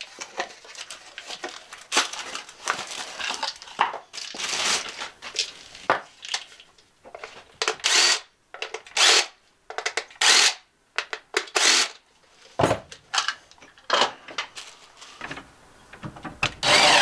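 Clinks and rattles of small metal parts and packaging, with a cordless drill-driver working the terminal screws of a battery-monitor shunt and a busbar terminal block, in a string of short separate sounds; the loudest comes near the end.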